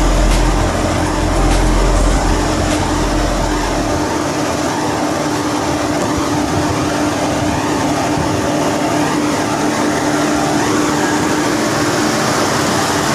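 Steady rush of wind and tyre noise from a bicycle rolling along a concrete road, with a steady hum throughout. Deep wind buffeting on the microphone drops away about four seconds in.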